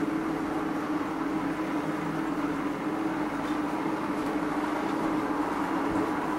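Model railway train running on the layout: a steady electric motor hum with the rumble of its wheels on the track.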